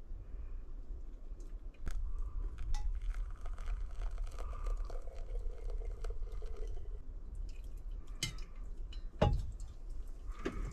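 Small clicks, crunches and clatter of gear being handled in a camper's small room, over a steady low rumble. There is one sharp knock about nine seconds in.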